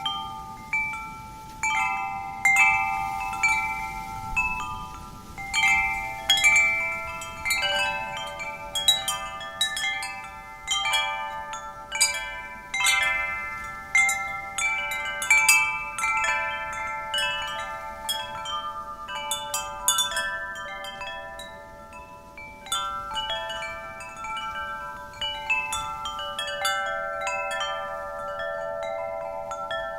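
Wind chimes jangling irregularly in the wind, several ringing notes overlapping and dying away. The strikes come in clusters every second or so and grow sparser and softer in the last third.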